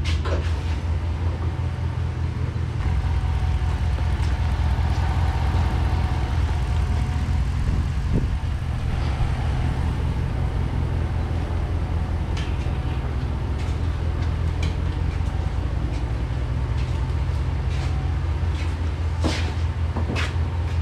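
Steady low hum of an idling vehicle engine, louder after about three seconds, with a few scattered clicks and knocks.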